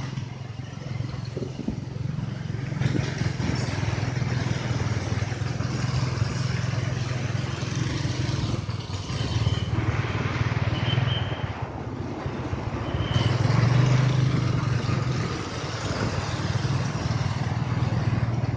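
Motorcycle engine running as it rides through shallow floodwater, under a steady hiss of tyres and spray on the wet road. Three short high beeps in the second half.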